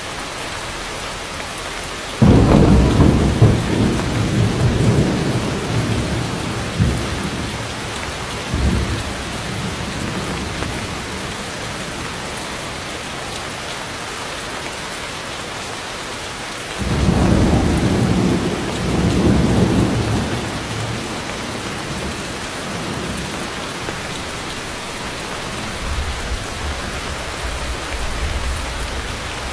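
Heavy rain falling steadily on forest foliage, with two sudden loud claps of thunder that rumble away over several seconds, one about two seconds in and another midway, and a fainter roll of thunder near the end.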